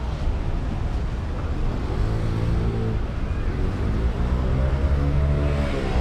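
Street traffic: a car engine running past close by, its pitch rising and falling, over a steady low rumble of road noise.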